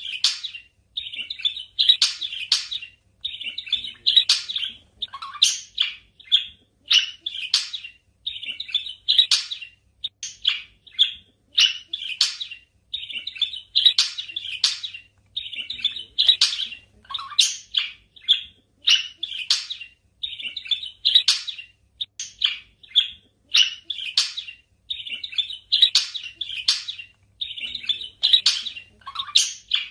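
Budgerigars chirping steadily in quick clusters of short, high chirps. The same sequence seems to repeat about every twelve seconds, like a looped recording.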